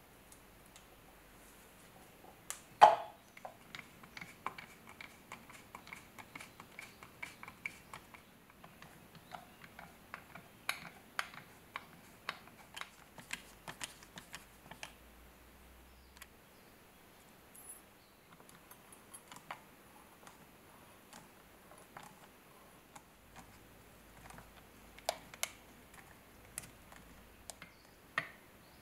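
Small clicks and taps of a screwdriver and metal and glass parts as a ship's compass is reassembled and the screws of its bezel ring are driven in. There is one sharper knock about three seconds in, followed by a faint high ring lasting a few seconds.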